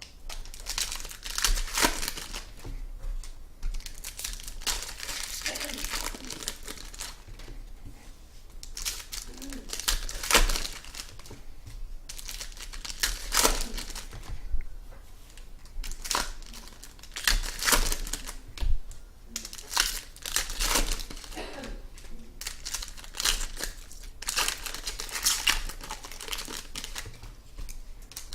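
Trading card packs and their foil wrappers being torn open and crinkled by hand, in irregular rustling rips and crackles with handling of the cards.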